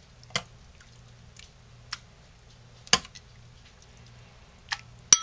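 A metal spoon clinking and scraping against the Instant Pot's metal inner pot and a bowl while casserole is scooped out: a few sharp, separate clinks, the loudest near the end with a short ring, and soft squishes of the food.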